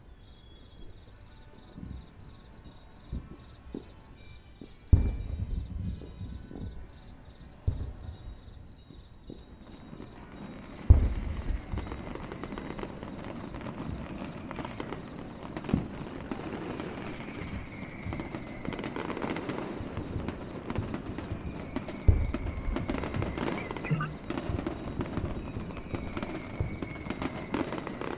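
Fireworks going off: scattered booms at first, then from about ten seconds in continuous crackling with further booms and a few short falling whistles. Before the crackling starts, a faint high pulsing chirp runs underneath.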